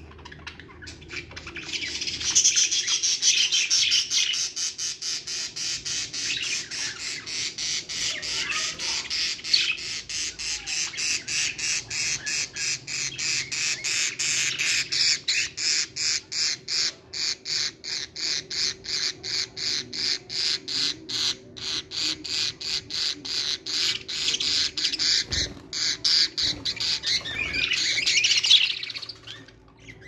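Budgerigars squawking and chattering loudly, in a fast repeated pattern of about three to four calls a second that stops shortly before the end.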